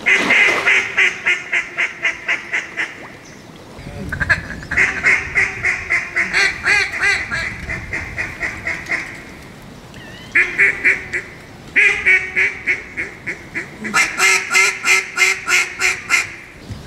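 A mallard duck call blown in several runs of loud, rapid hen quacks, about four a second, with short pauses between the runs, calling to ducks circling overhead.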